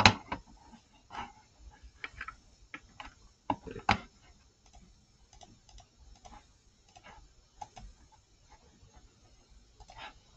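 Computer mouse clicking at an irregular pace, entering a number into an on-screen calculator, with louder knocks at the very start and about four seconds in.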